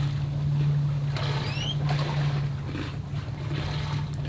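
Steady low hum of a motor running aboard the boat, with two short rising squeaks about one and a half seconds in.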